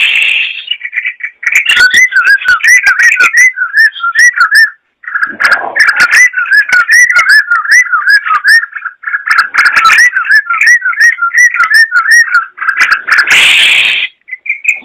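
Yellow-vented bulbul (trucukan) singing in long runs of rapid, looping whistled notes, with a short break about five seconds in and a harsher, rougher burst near the end.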